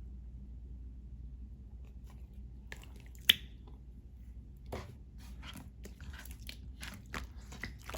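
Close-up eating sounds of a thick whipped-cream-filled waffle: after a quiet start, a sharp click about three seconds in, then a run of crisp bites and chewing in the second half.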